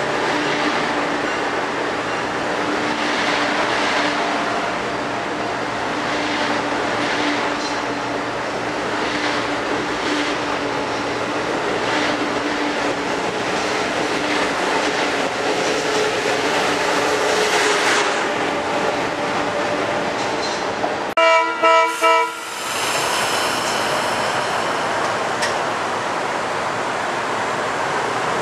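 Amtrak Acela Express train rolling past a station platform: a steady rumble and hiss with scattered clacks of wheels on the rails. About 21 seconds in the sound cuts abruptly, a train horn gives about four short blasts, and a steady even hiss follows.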